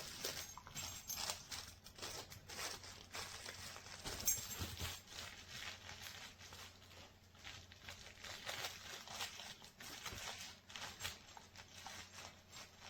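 A dog playing with a plush toy that has crinkle padding, chewing and tugging at it: irregular crinkling and rustling with scattered soft clicks.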